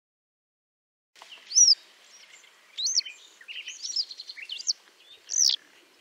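Yellow wagtail calling: short, sharp, high slurred notes, the loudest near the start and near the end, with softer twittering between them over a faint background hiss.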